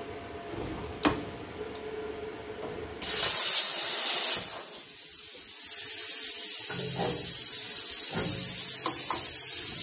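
Plasma cutter cutting through a steel truck hood, a loud steady hiss of air and arc that starts suddenly about three seconds in, after a single click.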